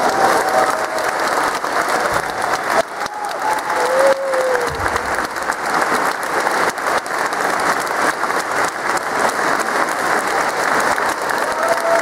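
A concert-hall audience applauding steadily, many hands clapping at once.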